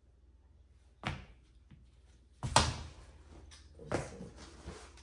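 Handling of a cardboard shoebox and packaging: three separate knocks about a second apart, the loudest about two and a half seconds in, with softer handling noise between them.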